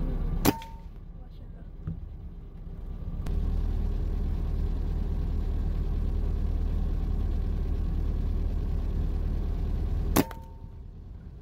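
Two shots from an Artemis P10 airgun, one about half a second in and one near the end, each a sharp crack with a brief metallic ring. A steady low rumble runs between them.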